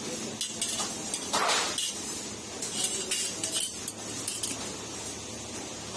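Thin sheet-metal disc clinking and rattling as it is handled and set against the drum's sheet-metal body: a few irregular light metallic clinks, the loudest a short rattle about a second and a half in.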